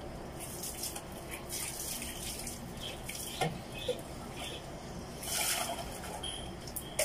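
Close-up chewing of crunchy food, with short crackly bursts and a few sharp clicks, along with rustling and snapping as fresh herb sprigs are picked apart by hand.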